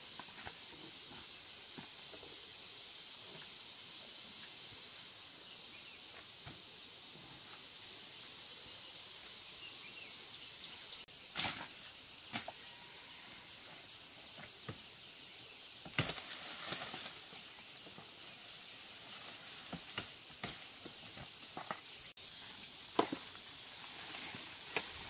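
Steady high-pitched chorus of insects, with footsteps crunching on dry sugar cane leaves and scattered sharp crackles and snaps of dry cane trash, a few of them louder.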